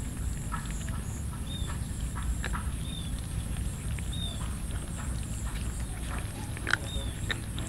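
Several cats eating cooked rice from a metal tray: many small, irregular clicks and smacks of chewing and licking. A short high chirp repeats about every second and a quarter over a steady high-pitched hum.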